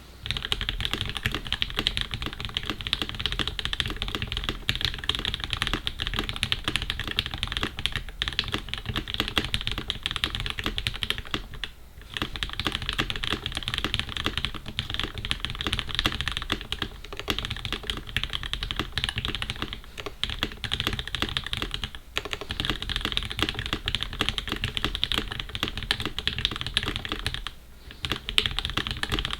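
Fast, continuous typing on a custom Alpine 65 mechanical keyboard with lubed Durock linear switches and GMK keycaps. The keystrokes run densely, with short pauses about twelve seconds in, about twenty-two seconds in and near the end.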